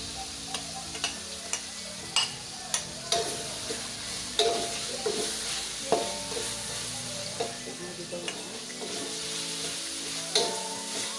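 Spices and aromatics sizzling in hot oil in a metal wok while a spatula stirs through them, with irregular sharp clicks and scrapes of the spatula against the pan.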